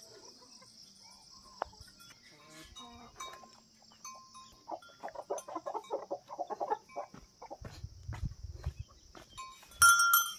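Insects droning steadily and high-pitched, with soft rustling steps on dry ground in the middle. Near the end comes a short, loud, high-pitched animal cry.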